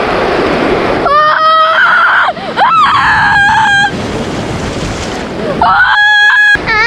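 High-pitched screaming in two held, flat-pitched bursts, the first about a second in with short breaks and the second near the end, over a steady rushing noise like surf.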